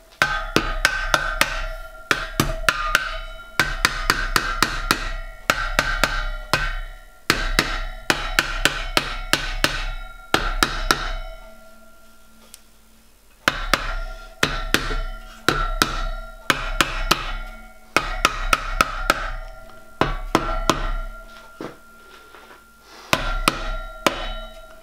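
Soft-faced mallet tapping a copper boiler backplate home into the boiler shell, in bursts of several quick taps with short pauses between. Each tap leaves the copper ringing with a bright tone.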